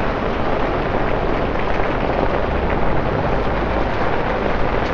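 Torrential rain falling steadily on a city street, a dense even hiss and spatter on wet pavement.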